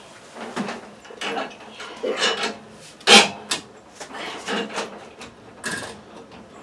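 Sheet-metal housing of a Mr. Heater Big Maxx MHU50 unit heater and its hanging chains being handled and pushed up into place: an irregular string of clunks, rattles and rubbing, the sharpest knock about three seconds in.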